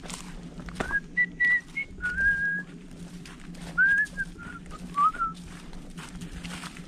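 A person whistling a few short phrases of clear notes with small slides in pitch, over the sound of footsteps.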